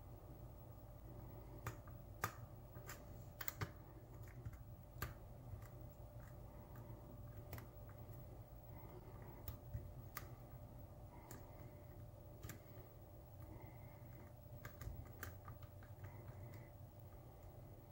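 Faint, irregular metallic clicks of a hook pick working the pins of a pin-tumbler lock cylinder held under tension in a vise, the custom One Fang Vampire challenge lock. A low steady hum sits beneath the clicks.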